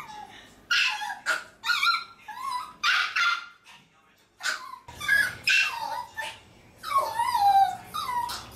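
Maltese dogs whining and yipping in a string of short, high-pitched calls, several sliding down in pitch: left behind at the door, they are protesting at not being taken along.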